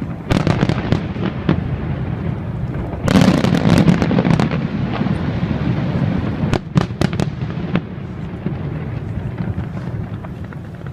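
Fireworks display going off: continuous crackling and booming, with a dense, loud volley about three seconds in and several sharp separate bangs around seven seconds.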